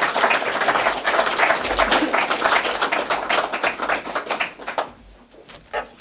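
Audience applauding, the clapping dying away about five seconds in.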